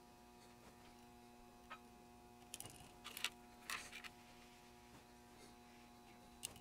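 Faint scattered clicks and short scratches of small resistors being handled and fitted into a small printed circuit board held in a bench vise, most of them in a cluster around the middle, over a steady faint hum.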